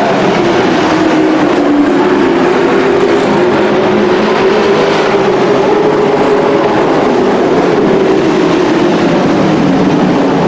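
Dirt-track race truck engines running on the oval: a loud, steady mechanical drone from several trucks, its pitch drifting slowly up and down.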